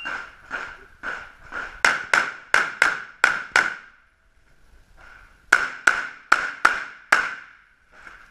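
A shot timer gives a short beep, then a handgun fires a string of shots about half a second apart or faster. After a pause of about a second and a half, five more quick shots follow.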